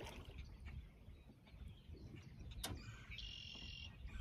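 Faint low rumble of wind on the microphone, with one sharp click a little past halfway and a short high chirp a few tenths of a second later.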